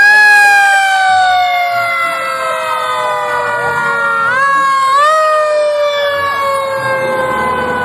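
Fire engine sirens wailing: one long tone slowly falling in pitch, with a second siren rising sharply around four to five seconds in.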